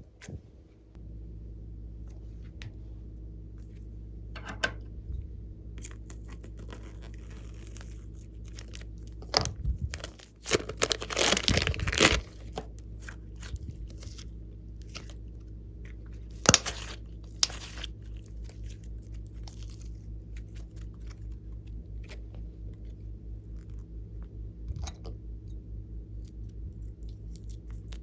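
Hands working glossy slime and its add-ins: scattered short sticky clicks and crackles over a steady low hum, with a louder stretch of dense crackling about ten to twelve seconds in and another sharp burst a few seconds later.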